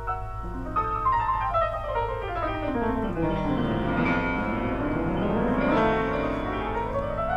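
Solo grand piano playing classical music: a fast run sweeps down into the bass and then climbs back up over several seconds. A steady low hum lies underneath.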